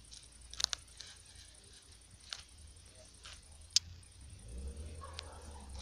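A few scattered sharp clicks, about five over several seconds, over a faint low hum.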